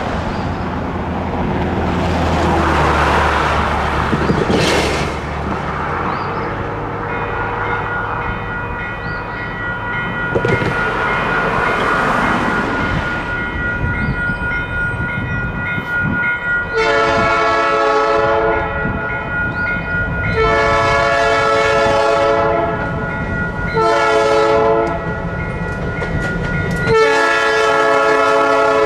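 Cars pass over the road, then a railroad crossing bell starts ringing and keeps ringing steadily. In the second half a diesel locomotive's horn sounds the grade-crossing signal: two long blasts, a short one, then a long one that is still sounding at the end.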